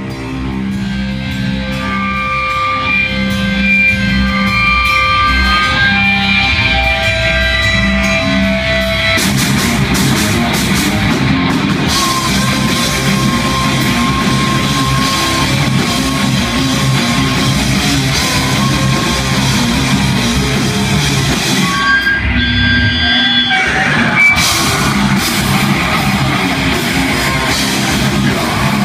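Live rock band playing with electric guitars, bass guitar and drum kit. At first a guitar picks out held notes over the bass; about nine seconds in the full band comes in heavier with the drums, and breaks briefly about two-thirds of the way through before carrying on.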